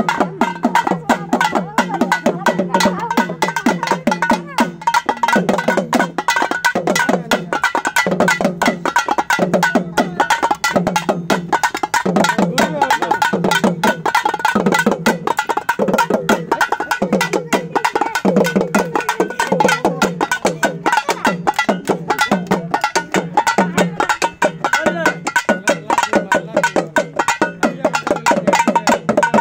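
Two small double-headed drums beaten with sticks in a fast, driving, steady rhythm of dense repeated strokes, the drumheads giving a low pitched note.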